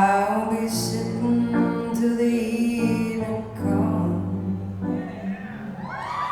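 A soul song with a male vocal and band, played back over Børresen Acoustics hi-fi loudspeakers in a demo room.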